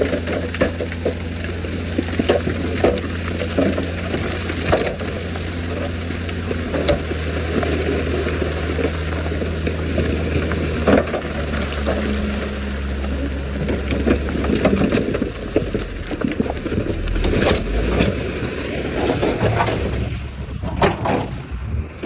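Heavy dump truck's diesel engine running with a low steady hum under a continuous crunching and clattering of rock sliding out of its tipped bed. The engine hum fades away past the middle while the rock noise goes on.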